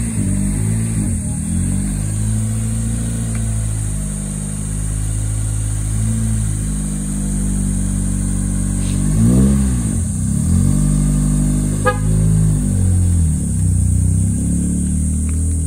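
Honda Civic EK hatchback's four-cylinder engine running, revving up and down once near the middle, as the car pulls away.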